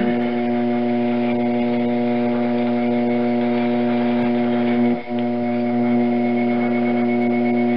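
A steady, low droning hum on one held pitch with many overtones, broken briefly about five seconds in.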